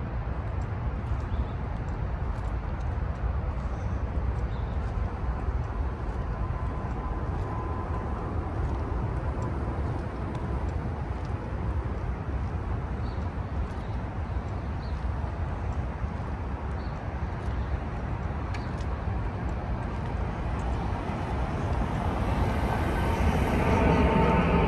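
City street ambience: a steady rumble of traffic, growing louder near the end as a vehicle's engine draws close.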